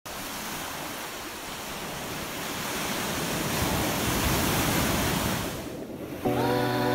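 Sea waves washing in and breaking against a concrete jetty, swelling louder a few seconds in. Music with sustained notes starts near the end.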